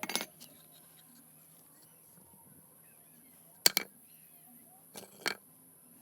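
A few light, sharp hammer taps: two close together a little past the middle and two more about a second later, over a faint steady hum and hiss.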